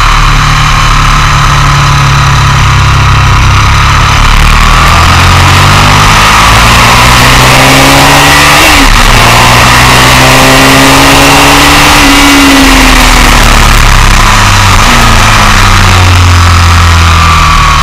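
Motorcycle engine under hard acceleration on a race track, its pitch climbing through the gears with a shift about halfway, then falling away as the bike slows, over loud wind rush on the camera's microphone.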